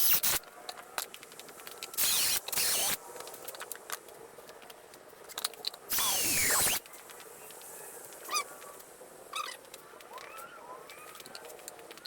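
Power drill run in short bursts, about four times, its pitch rising and falling as it bores a hole in the plastic valve cover beside the oil fill for the turbo oil drain.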